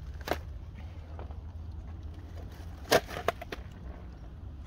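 Ice cracking and crunching: one sharp snap shortly after the start, then a louder cluster of snaps and clicks around the middle, over a steady low rumble.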